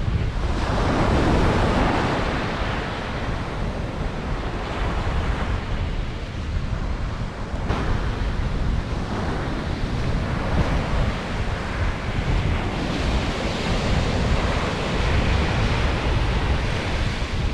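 Ocean surf washing up the beach in slow surges, with strong wind buffeting the microphone as a low rumble.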